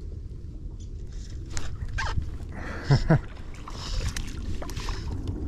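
Fly line and rod being handled from a kayak as a fish is hooked: scattered clicks and knocks over wind rumble on the microphone. A little past the middle come two short squeals, each falling quickly in pitch, the loudest sounds here.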